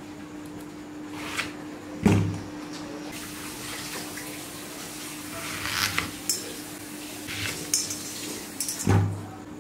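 Kitchen utensils and pots clinking and knocking, with bursts of running or splashing water. The loudest moments are two heavier knocks, one about two seconds in and one near the end.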